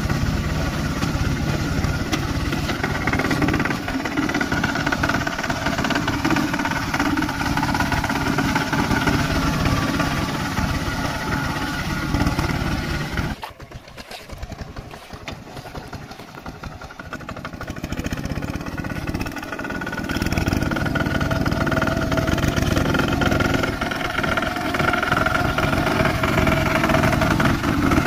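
Single-cylinder diesel engine of a two-wheel walking tractor running steadily under load as its cage wheels churn a flooded rice paddy. About halfway through it drops suddenly to a much fainter sound, then comes back up over several seconds.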